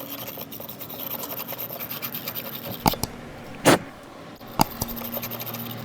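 Battery terminal cleaner's wire bristle brush twisted back and forth inside battery cable clamps, a rapid scrubbing scrape as it scours corrosion out of them. Three sharp knocks follow, about three, three and a half and four and a half seconds in.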